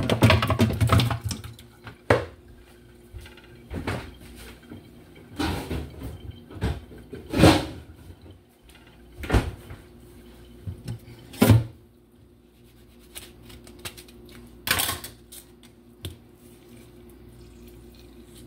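Wet chunks of raw goat meat tipped from a bowl into a metal pot in a stainless steel sink: a burst of sliding and thudding at the start, then scattered knocks and clatters as the pieces, pot and bowl are handled.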